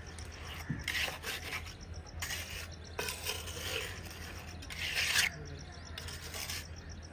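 Steel hand trowel scraping and spreading cement mortar on a brick wall, in a series of short, irregular scraping strokes.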